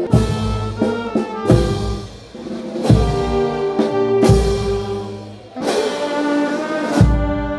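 Processional brass band playing a slow melody, with held brass notes over a bass drum and cymbals striking about every one and a half seconds.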